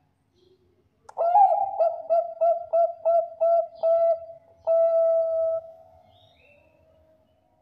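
Zebra dove (perkutut bangkok, a Thai-bred contest strain) singing: a quick run of about eight short coos, roughly three a second, then one long held coo.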